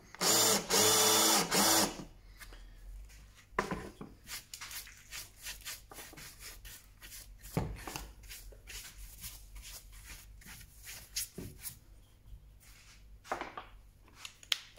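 Cordless drill with a countersink bit running in two short bursts, a pitched motor whine, cutting countersinks into plywood. After that come only faint taps, light scratching and handling clicks as a bench brush sweeps off the chips.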